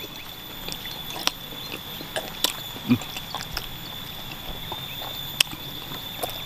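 Eating noises: sporadic small clicks, taps and smacks from someone eating meatball soup with chicken feet, over a faint steady hum with a thin high whine.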